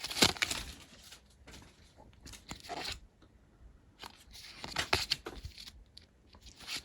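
A Pokémon booster pack's foil wrapper crinkling and tearing in several short bursts as it is opened, with cards being handled.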